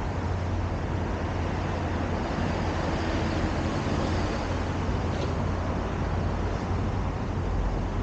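Steady urban outdoor background of distant road traffic: a continuous low rumble and hiss with no distinct events.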